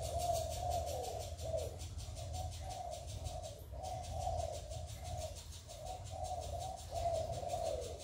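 Spotted dove cooing: a run of short, low hooting coos in repeated phrases, with a falling note about a second and a half in and again near the end.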